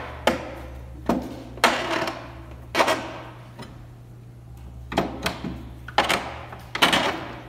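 Irregular sharp wooden knocks and clacks, about eight of them with a quieter gap in the middle, as a T-handle Allen wrench is worked in the bolt holes of a plywood model-railroad module.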